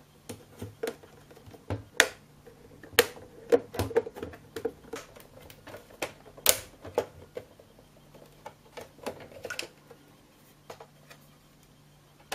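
Plastic top cover of a Toshiba TDP-S8 projector being pried off its case: a run of sharp plastic clicks and snaps as the casing is worked loose. The clicks come thickest in the first seven seconds and thin out toward the end.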